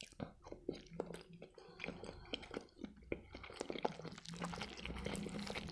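Close-miked chewing of a mouthful of hard-boiled egg: soft wet mouth clicks and smacks, getting busier in the last couple of seconds.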